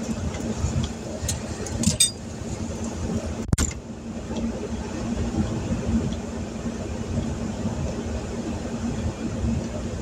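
Heavy rain falling on a vehicle's windshield and roof, heard from inside the cab over a steady low hum from the idling vehicle. Two sharp clicks come about two and three and a half seconds in.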